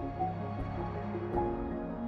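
Soft background music of held notes over a low drone, changing chord about one and a half seconds in.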